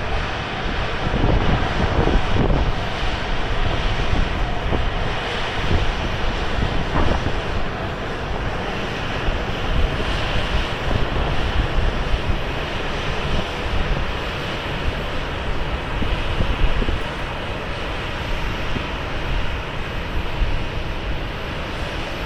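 Jet airliner engines running with a steady rumble and hiss, the sound level holding even throughout.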